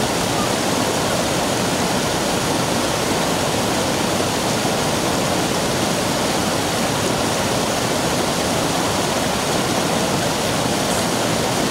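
Steady rush of stream water cascading over a sloping rock slab, unbroken throughout.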